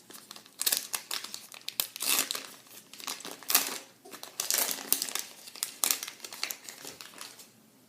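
Wrapper of a baseball card pack being torn open and crinkled by hand: a run of irregular crackling rustles for about seven seconds that stops near the end.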